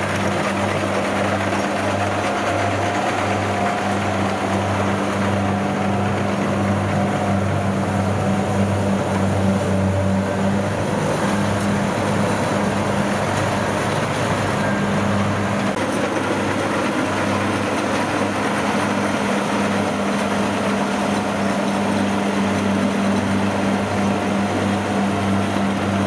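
Kubota DC-60 rice combine harvester running steadily while it cuts standing rice, its diesel engine giving a low drone with a regular throb.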